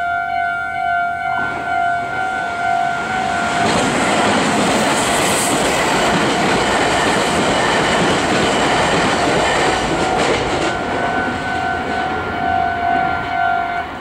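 Level-crossing electronic warning bells ringing in a steady pulsing two-tone, drowned out from about four seconds in by a Meitetsu 3100-series and 3300-series electric train passing at speed, with a rush of wheel and rail noise and clickety-clack over the joints. The bells come back once the train has cleared and stop near the end.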